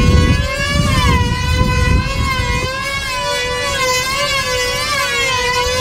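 Small two-stroke engines of control-line combat model airplanes running flat out, a high whine whose pitch wavers up and down as the planes circle. More than one engine is heard, their whines weaving together.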